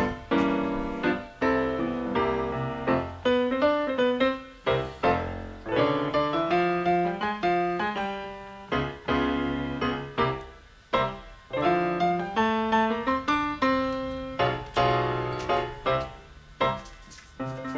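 Piano music: notes and chords struck one after another, each ringing and fading.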